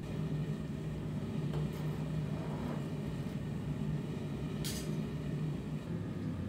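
Gas forge burner running with a steady low hum, and a brief metallic clink about two-thirds in.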